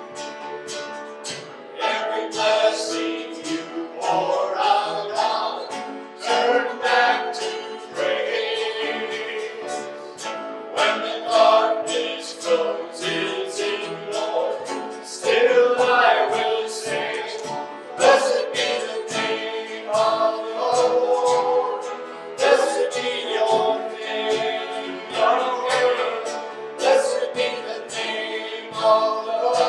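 Worship song: voices singing a melody over a strummed acoustic guitar with a steady beat.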